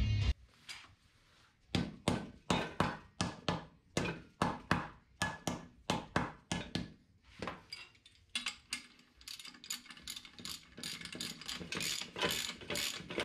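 Hand ratchet clicking as it runs in the bolts that hold a wheel hub bearing assembly to a steering knuckle. It goes in strokes of about two a second, then faster ratcheting from about eight seconds in.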